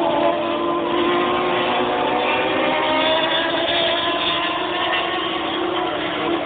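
Superstock racing motorcycle engines running hard on the circuit, a continuous high-revving engine note whose pitch slowly drifts as the bikes pass at a distance.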